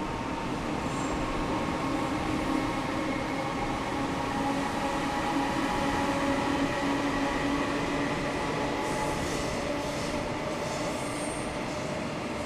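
EF200 electric locomotive hauling a freight train under power, accelerating as it passes. Its traction motors give a steady whine at several pitches over the rumble of wheels on rail, with a few brief high squeals near the end.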